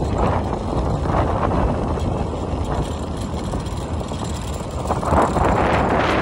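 Motorbike riding at speed: wind rushing over the microphone on top of the engine and tyre noise, swelling briefly about five seconds in.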